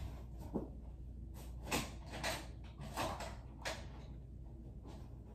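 Faint scattered knocks and rustles of a person moving about and handling things, five or six small bumps over a few seconds.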